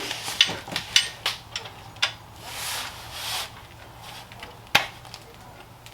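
A wrench working on a car's oil drain plug: several sharp metal clicks and knocks, with stretches of scraping noise in between.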